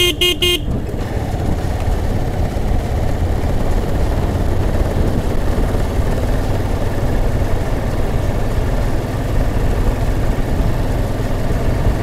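Motorcycle running steadily on the road, its engine hum mixed with wind and road noise. A few quick beeps come at the very start.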